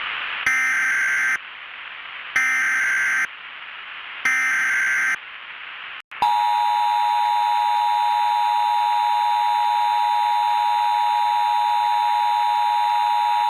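Emergency Alert System broadcast tones over a static hiss. Three short bursts of screeching SAME header data come about two seconds apart. About six seconds in, the steady two-tone EAS attention signal begins and holds.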